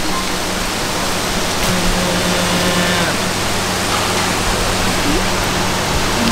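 Pork sizzling on a hot mookata grill pan: a steady, even hiss.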